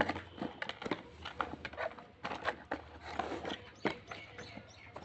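Cherries and their stems being handled and packed into a cardboard box: a run of short, irregular clicks, taps and rustles, the loudest right at the start.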